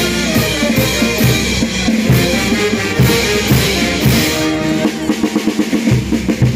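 Live band music driven by a drum kit with bass drum and snare keeping a steady beat. About four and a half seconds in, the bass drops away for a quick run of drum hits, and the full beat comes back near the end.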